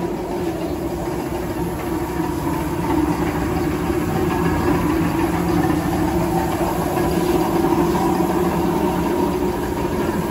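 Gravity-feed spray gun spraying 2K primer with a steady air hiss, over the continuous hum of the air compressor that feeds it. It gets a little louder about three seconds in.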